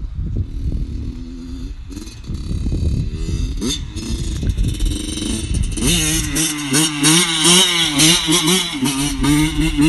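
Small two-stroke dirt bike engine running under a low rumble. From about six seconds in it revs hard, its pitch rising and falling again and again as the throttle is worked during a wheelie attempt.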